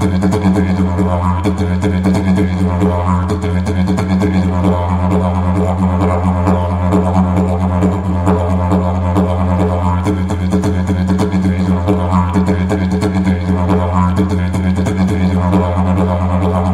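Didgeridoo playing an unbroken low drone, its upper overtones swelling and sweeping in a repeating rhythm.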